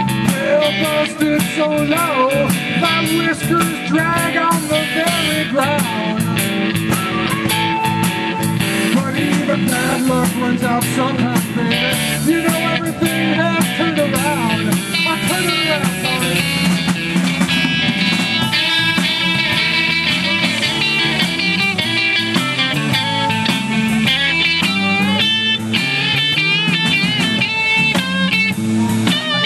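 Live blues band playing: amplified blues harmonica wails over electric guitar and drums in the first half, then an electric guitar takes a solo of bent, wavering high notes.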